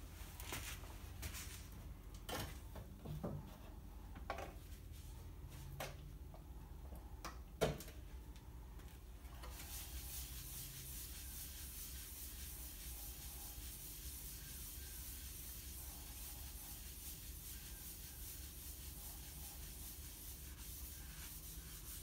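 A folded rag rubbing boiled linseed oil onto the outside of a turned oak bowl, a steady scratchy swishing that sets in about a third of the way through. Before it come scattered light knocks and handling clicks, with one sharper knock just before the rubbing starts.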